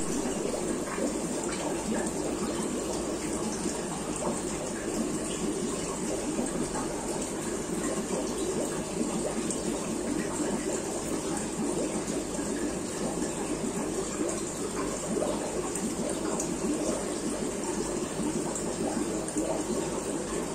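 Aquarium water circulation: a steady splashing and bubbling of water from the tank's filter and air line.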